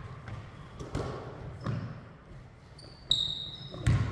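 A basketball bouncing unevenly on a hardwood gym floor, four knocks spread through a few seconds. A brief sneaker squeak comes about three seconds in.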